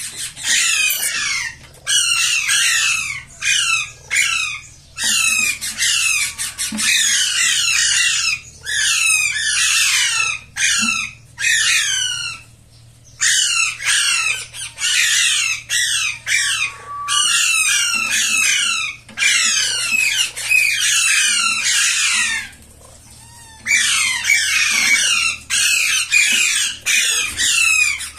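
Green parakeet squawking harshly at a hand in its nest box: long runs of rapid calls, each falling in pitch, broken by two short pauses, while it bites at the fingers.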